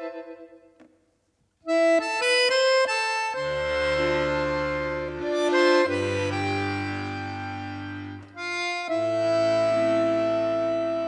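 Music played on an accordion-like reed instrument. A held note dies away into about a second of silence, then a run of short, detached notes leads into sustained chords over a deep bass line.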